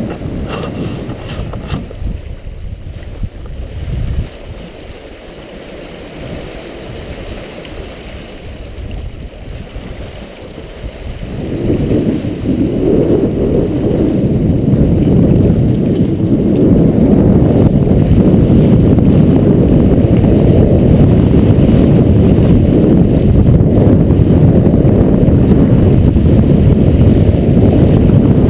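Wind buffeting the microphone over the rush of water along a sailboat's hull as she sails fast through rough seas. The rushing grows much louder about twelve seconds in and stays loud, with a couple of dull knocks in the quieter opening.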